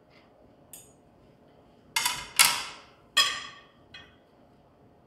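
Metal utensils clinking against a ceramic plate: four sharp, ringing strikes, two close together about two seconds in, then one more and a fainter one.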